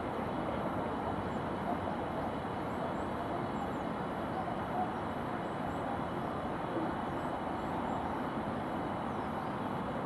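Steady hum of distant city traffic, with a few faint high chirps now and then.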